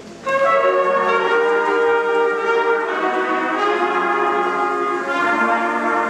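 Middle school concert band of woodwinds and brass coming in together on the conductor's downbeat about a third of a second in, then playing sustained chords that change every second or so.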